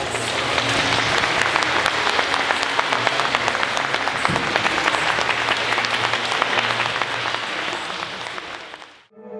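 Audience applauding, many hands clapping together; it eases off near the end and then cuts off suddenly.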